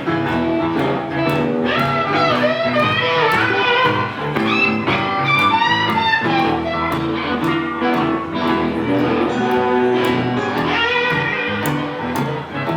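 Live blues band playing an instrumental break: a guitar lead with notes that bend up and down over a steady beat.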